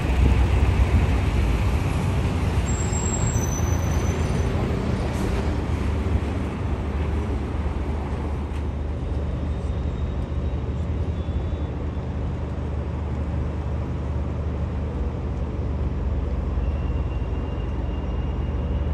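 Steady low rumble of city road traffic mixed with the distant jet roar of an Airbus A350-1000 and its Rolls-Royce Trent XWB turbofans passing overhead. It eases a little after the first few seconds and then holds even.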